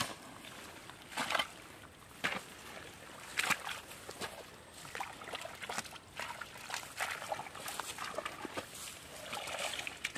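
Hands digging and scooping through wet mud and shallow muddy water: short, irregular wet sounds, about one a second at first, coming more often later on.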